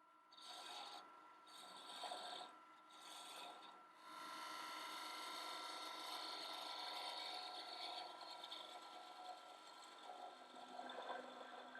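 Wood lathe spinning a small spindle while a parting tool cuts into the wood: several short scraping cuts in the first few seconds, then a longer, steadier cut.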